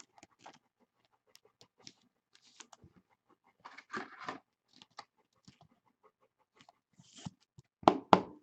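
Faint crinkling, rustling and light clicks of trading cards and their packaging being handled, with a louder rustle about four seconds in and sharper crackles near the end.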